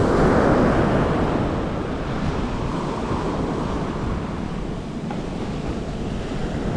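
Surf breaking and washing up the beach, loudest about the first second and then settling into a steady rushing wash; strong waves, with wind buffeting the microphone.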